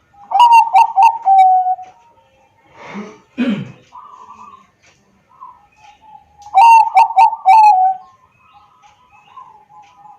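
Zebra dove (Bangkok perkutut) cooing: two song phrases several seconds apart, each a quick run of short clipped notes ending in a longer falling note. Fainter cooing runs in between. A brief whoosh falling in pitch comes about three seconds in.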